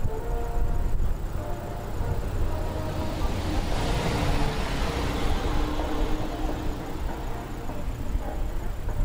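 A car passing on the road, its tyre and engine noise swelling up around the middle and fading away, over a steady low rumble.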